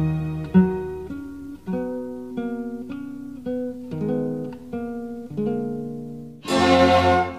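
Background music: an acoustic guitar picking single notes one after another, each ringing out. Near the end a louder, fuller passage comes in.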